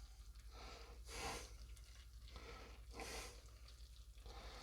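Faint breathing, three soft breaths about two seconds apart, over a low steady hum.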